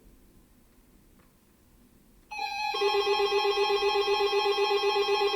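Emergency alert attention tone from a weather radio broadcast. It starts abruptly about two seconds in after near quiet, and is a loud, steady chord of several pitches with a rapid pulse.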